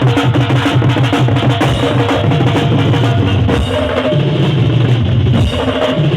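Loud drum-heavy music with a strong, thick bass and a fast, continuous beat, played through a large sound system.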